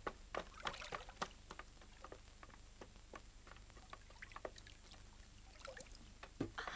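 Water lapping and splashing around a small boat in short, irregular splashes, busiest in the first second and again, louder, near the end.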